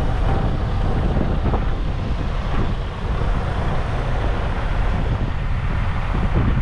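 Wind buffeting the microphone, a steady low rumble, with vehicle noise mixed in.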